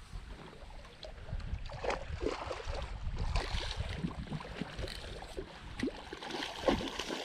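Low rumble and rustling handling noise with many small scattered clicks and knocks, from rod-and-reel fishing gear being worked during the fight with a hooked tarpon.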